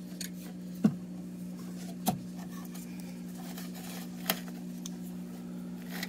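Handling noise from a metal scanner chassis being moved and turned on the workbench: three short knocks, the first the loudest, over a steady low hum.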